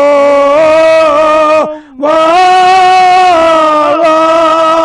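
An elderly man singing a Kashmiri devotional elegy (marsiya) for Imam Hussain, unaccompanied. He holds two long, drawn-out notes with a brief breath between them.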